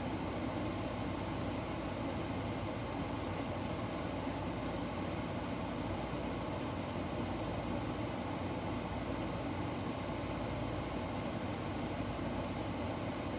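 Steady, even rumbling noise with no beat and no change in level, with no handling sounds or voice on top.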